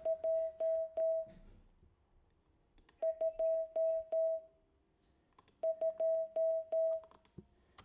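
Morse code for the number 3 (dit-dit-dit-dah-dah) sent three times as a single steady mid-pitched CW tone from an Icom IC-7300 transceiver. A faint click comes with each element.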